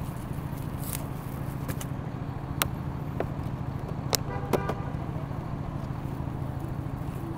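Steady low hum of city street traffic, with a few sharp clicks and a short crackle as the clear plastic lid of a takeout container is pried open, about two and a half and four seconds in.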